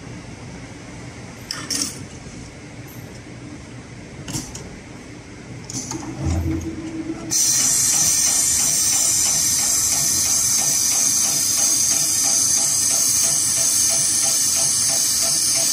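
HighTex 733PLC heavy-duty programmable pattern sewing machine stitching through thick, stiff braided rope, starting suddenly about seven seconds in: a steady rhythmic stitching under a loud constant hiss. Before it starts, only a few faint clicks from handling the rope and a digital caliper.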